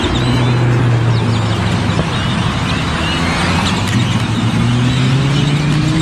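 A motor vehicle engine running steadily, its pitch rising near the end, over many short, quick calls from a large flock of birds.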